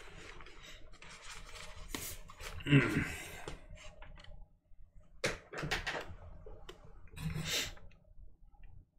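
Pages of a large illustrated hardcover book being turned and the book handled: paper rustling with a few sharp taps and knocks, the sharpest a little past halfway, and a brief murmur about three seconds in.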